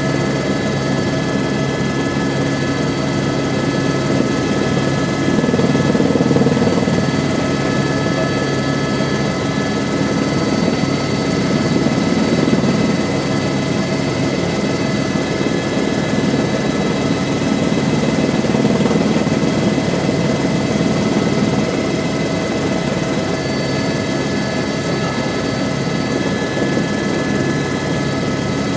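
Airbus H125 (AS350 B3e) helicopter in flight, heard from inside the cabin: the single turboshaft engine and rotor make a steady loud drone with a constant high whine, swelling gently a few times.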